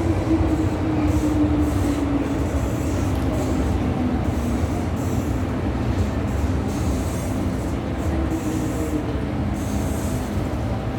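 MTR M-Train heard from inside the car as it runs: a steady rumble of wheels on track with a motor whine that drops slowly in pitch over the first few seconds, then holds steady.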